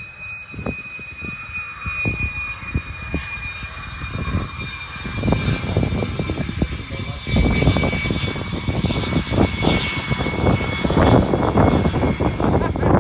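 A USAF Thunderbirds F-16 Fighting Falcon's single jet engine whining and rumbling as the jet rolls out on the runway after landing. Several steady high whine tones sit over an uneven low rumble that grows louder from about halfway through.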